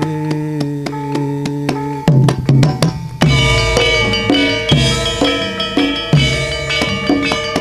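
Javanese gamelan music accompanying a kuda lumping dance: a long held note over steady light ticking, then about two seconds in loud hand-drum strokes break in, and ringing metal gamelan tones join in a fast, driving rhythm.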